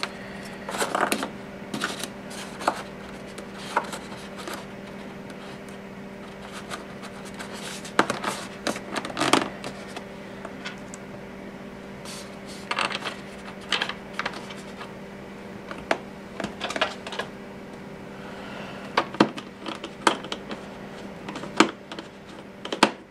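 Irregular small clicks, taps and scraping of hands handling a small cover and turning a small screw into the foam-and-plastic fuselage of an RC jet, over a steady low hum.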